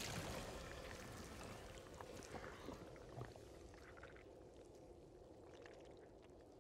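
Faint, noisy ambience fading away, with a few scattered soft crackles and ticks.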